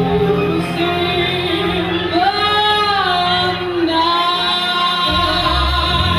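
A woman singing live with a small band, holding long notes that bend in pitch over the steady backing.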